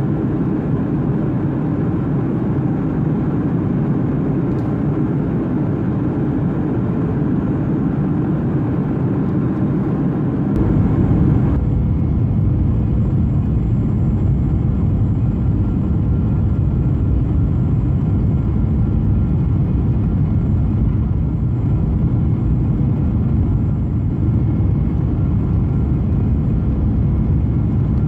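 Steady cabin noise inside a Boeing 737 in descent: engine and airflow rumble with a hiss above it. About eleven seconds in, the sound turns deeper, with more low rumble and less hiss.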